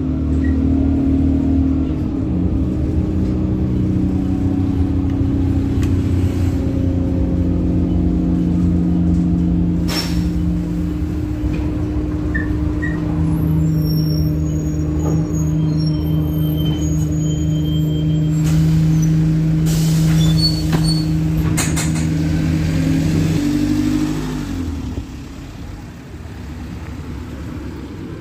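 Alexander Dennis Enviro200 single-deck bus heard from inside the saloon while driving: a steady engine and driveline drone with humming tones that shift in pitch as the bus speeds up and slows. A hiss of air, typical of the air brakes, comes about two-thirds of the way through, and the drone drops away near the end.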